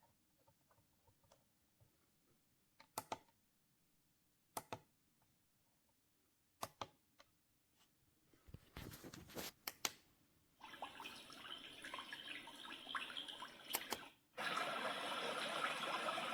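LIORQUE sunrise alarm clock playing one of its built-in nature sounds through its small speaker: a few sharp clicks, then a steady water-like rushing that starts about halfway through and gets louder near the end.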